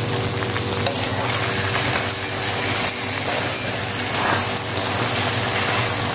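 Chopped chicken gizzards and liver sizzling steadily in a wok as the sauce cooks down. A wooden spatula stirs and scrapes through them partway through.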